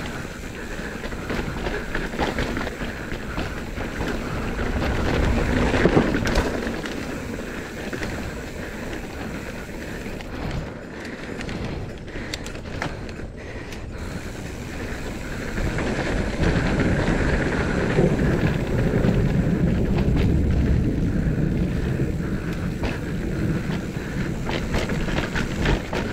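Mountain bike descending at speed: tyres on loose, freshly worked dirt, with wind rushing over the microphone and the chain and suspension rattling over bumps. It goes quieter and duller for a few seconds in the middle, then picks up again.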